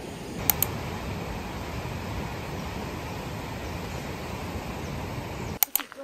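Steady rushing of wind and rough ocean surf, with two sharp clicks about half a second in. It cuts off suddenly near the end.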